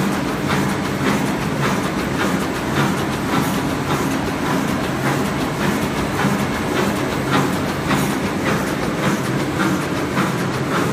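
A4 copy paper cutting machine running, a steady mechanical hum with a regular clacking as it cuts and feeds the sheets.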